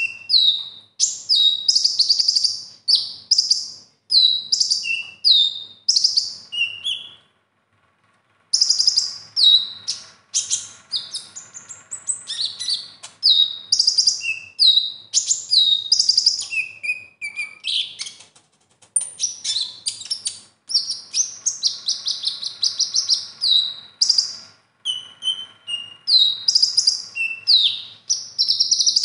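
Male Van Hasselt's sunbird (kolibri ninja) singing a fast, high-pitched run of chirps and short downward-sweeping whistles, in bursts with a brief pause about seven seconds in. It is a song filled with varied borrowed phrases (isian).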